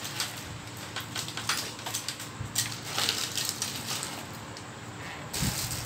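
Clear plastic bags crinkling and rustling, with small parts clicking, as a hand rummages through a basket of bagged electronic parts; a louder rustle with a dull bump comes near the end.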